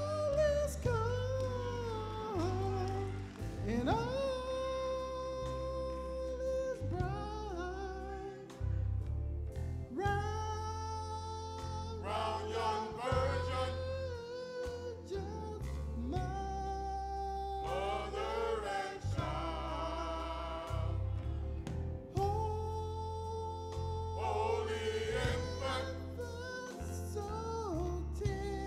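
A Christmas song sung by a vocalist over instrumental accompaniment with a stepping bass line. The voice holds long notes with a slight waver, with short gaps between phrases.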